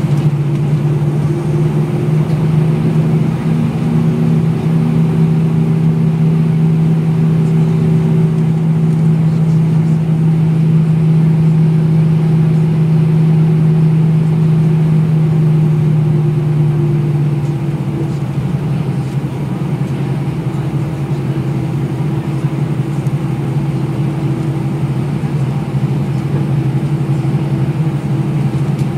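Steady cabin noise of an Airbus A320-200 taxiing, heard inside the cabin over the wing: the jet engines at idle with a low drone that fades about two-thirds of the way through.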